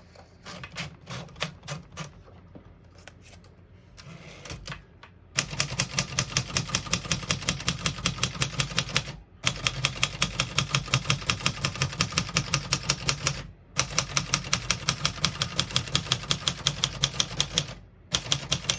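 Keys of a 1962 Singer Scholastic manual portable typewriter being typed: a few seconds of light, irregular keystrokes, then fast, even key strikes at about six or seven a second, in three runs of about four seconds each with brief pauses between them, typing a line out towards the margin.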